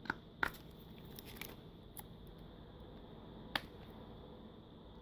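Sharp plastic clicks as a card pries the back cover of a Samsung Galaxy Tab 3 off its retaining clips: a few snaps in the first half-second, a couple more around a second and a half to two seconds in, and a louder one about three and a half seconds in.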